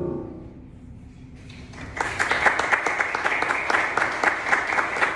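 The last notes of the soprano-and-piano song die away in a reverberant church. Then the congregation breaks into steady applause, growing in over the second second and full from about two seconds in.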